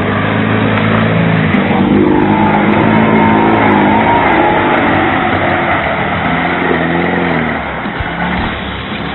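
UAZ off-roader's engine revving under load as it ploughs through a flooded mud bog, with water and mud splashing. The engine note climbs about two seconds in and falls away near the end as the truck pulls off.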